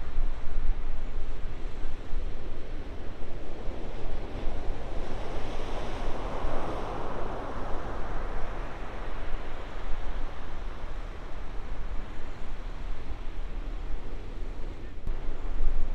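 Ocean surf breaking and washing, with wind buffeting the microphone; the surf swells louder for a few seconds around the middle.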